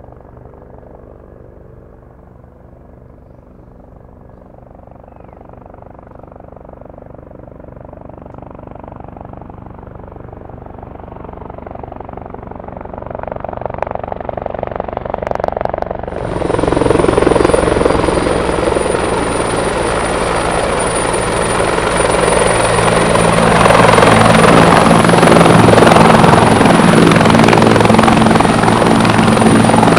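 Firefighting helicopter's rotor and turbine engine, faint and distant at first and growing steadily louder. About halfway through it becomes loud and close, with a steady high turbine whine over the rotor noise, as the helicopter hovers low over water.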